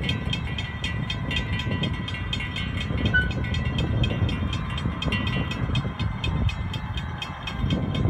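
Railroad grade-crossing warning bell ringing in rapid, evenly spaced strikes, several a second, over a steady low rumble.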